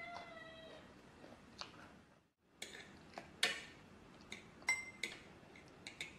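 A metal fork rings against a glass, the tone dying away within about a second, then clinks and taps on a plate in a string of sharp, irregular clinks, the loudest about three and a half seconds in.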